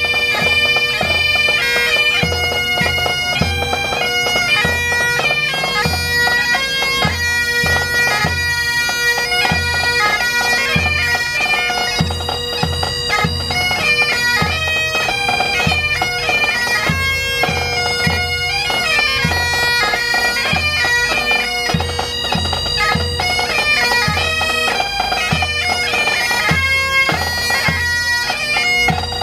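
A small pipe band playing: two Highland bagpipes sound a tune over their steady drone, with a bass drum beating about twice a second and a snare drum.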